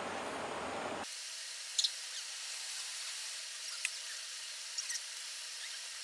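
River water running, heard as a steady hiss. About a second in, the deep part of the sound drops away suddenly, leaving only the high hiss. A few short, high chirps come through it.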